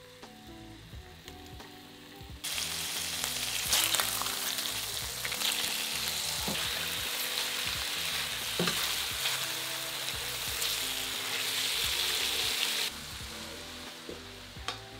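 Pork steaks sizzling in hot olive oil in a frying pan: a loud, dense sizzle that starts suddenly about two seconds in, with a few sharp clicks, and cuts off abruptly near the end.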